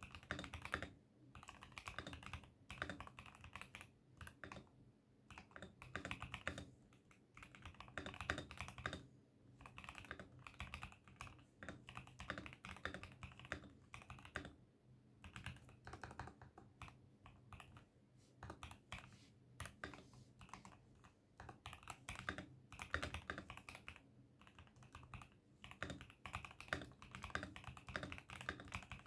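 Typing on an ASUS ROG Azoth wireless mechanical keyboard: rapid key clicks in runs of a second or two, broken by short pauses.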